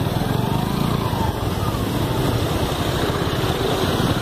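Small vehicle engine running steadily under a constant rushing hiss.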